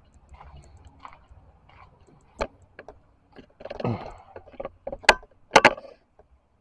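Handling noise on the camera: a scatter of sharp clicks and knocks, the loudest two about five and five and a half seconds in, with a short rustle around four seconds in.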